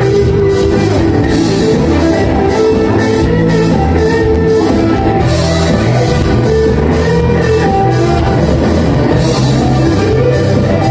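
A live rock band playing loudly, with guitar and drum kit, at a steady level.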